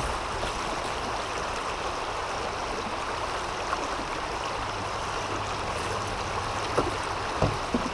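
River water rushing steadily, with a couple of small knocks near the end.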